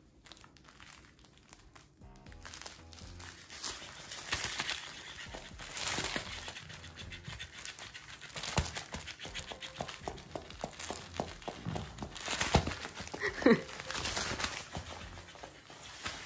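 An electric flopping plush fish toy, mouthed and carried by a dog: irregular fabric rustling and quick soft slaps as the fish's tail flaps against the floor. A short falling whine comes near the end.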